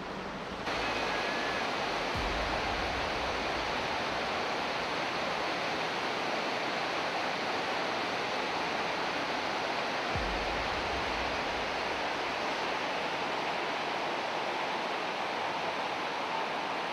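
Fast river water rushing over shallow rapids, a steady wash of water noise that steps up in loudness just under a second in.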